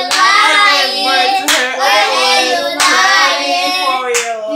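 A woman and young children singing loudly together, with three sharp hand claps about a second and a half apart.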